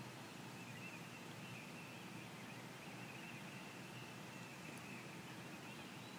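Quiet springtime woods ambience: a faint steady background hiss with faint, distant high-pitched birdsong running through it.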